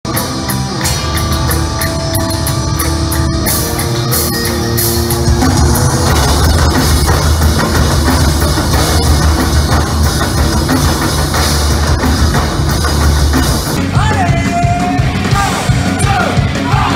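Loud live heavy rock played by massed drummers beating on metal barrels over electric guitar. About 14 seconds in it cuts to a punk rock song with a man singing over guitar and drum kit.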